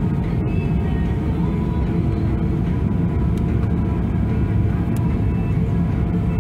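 Steady cabin noise of an Airbus A340-600 taxiing: a low rumble from the aircraft rolling, under the steady whine of its Rolls-Royce Trent 556 engines at taxi thrust.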